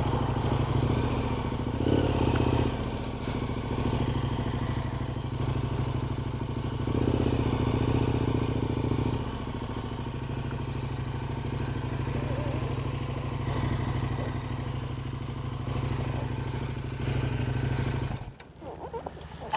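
KTM adventure motorcycle's twin-cylinder engine running at low speed, its note swelling briefly twice, until the sound drops away abruptly near the end.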